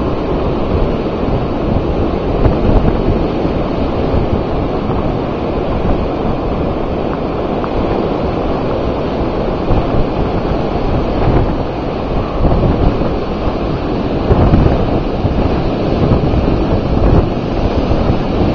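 Storm wind blowing hard across the microphone over rough sea surf: a loud continuous rush that swells in gusts, strongest around two thirds of the way through.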